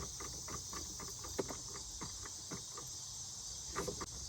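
Steady high-pitched insect chorus, with scattered light clicks and rustles throughout.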